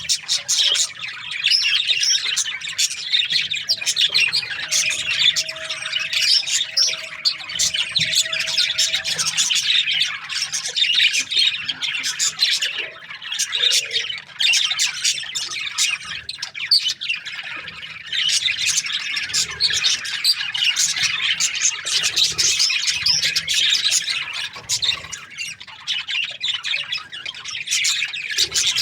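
A flock of budgerigars chattering, with dense, overlapping chirps and squawks that never let up.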